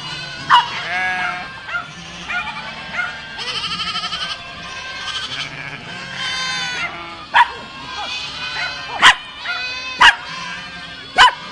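A herd of goats bleating, many calls overlapping, some of them quavering. Several sharp, very short sounds stand out above the bleating.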